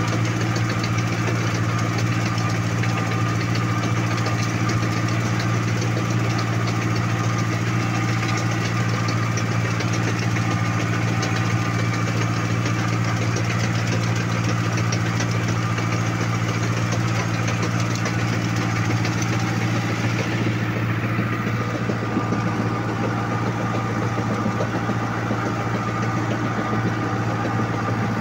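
Farm tractor engine running steadily as the tractor drives along with a fertilizer spreader mounted. The higher-pitched hiss eases a little about twenty seconds in.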